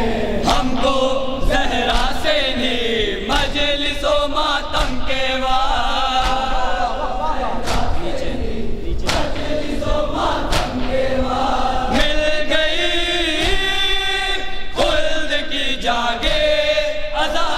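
A group of men chanting a nauha (mourning lament) in chorus, with the slaps of open hands striking chests in matam from the mourners.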